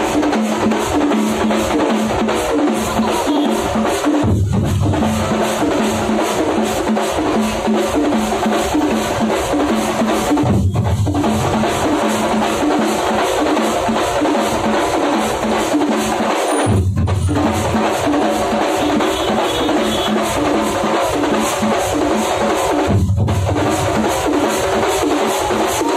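Thampola percussion ensemble, many drums beaten together in a loud, fast, repeating rhythm. Roughly every six seconds the pattern breaks off briefly, then comes back with heavier bass beats.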